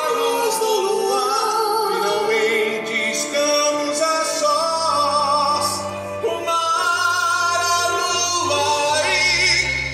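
Musical-theatre song: voices singing with vibrato over a musical accompaniment, the music swelling to a full chord near the end.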